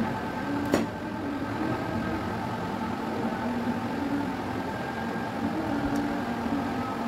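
A steady hum throughout, with a sharp tap of a kitchen knife on a cutting board a little under a second in and a fainter tap about six seconds in.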